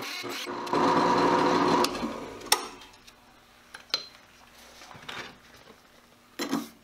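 Drill press driving an old, worn 2-inch hole saw into quarter-inch metal plate. It makes a loud, grinding chatter for about two seconds, then the saw is lifted and it fades, leaving a few light clicks. The dull teeth are not cutting well.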